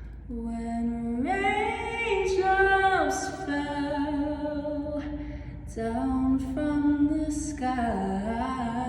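A young woman's solo voice singing a cappella, holding long, slow notes that echo in a stairwell.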